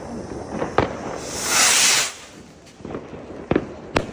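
New Year's Eve fireworks. A shell rocket gives a hissing rush that lasts under a second, and sharp bangs of fireworks go off around it, the last one near the end as a shell bursts in the sky.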